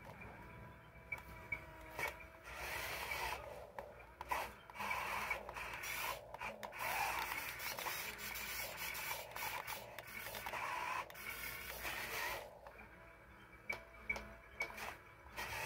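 Small electric motors and plastic gearbox of a toy radio-controlled wheel loader whirring as it drives and turns in sand, louder through a long stretch in the middle, with scattered clicks.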